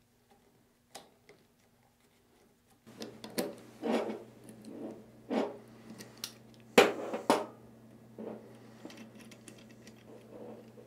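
Near silence for about three seconds, then pliers and locking pliers clicking and clanking against a steel pump shaft and nut as the nut is worked loose. The loudest two clanks come close together about seven seconds in.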